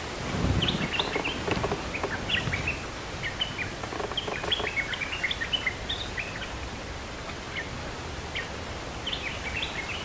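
Bulbuls calling: a quick run of short, bright, upward-flicking chirps that thins out after about seven seconds. A low rumble of rustling is loudest about half a second in.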